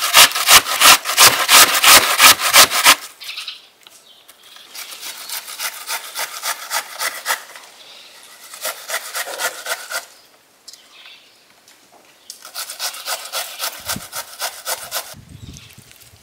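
An onion rubbed up and down a metal box grater: rhythmic rasping strokes, about three a second. They are loud and close for the first three seconds, then quieter in several runs with short pauses between.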